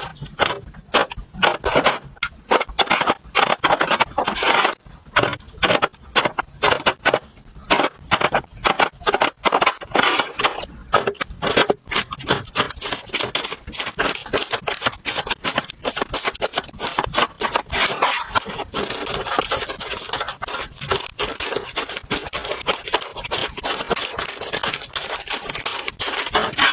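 Rapid clicks, taps and scraping of kitchen items and packaging being handled, with a steady hiss coming in about two-thirds of the way through.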